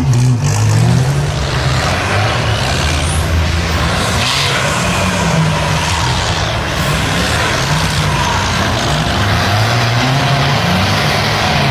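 Off-road race vehicle engines running hard under load in mud, a steady low engine note that rises and falls in pitch as the throttle is worked.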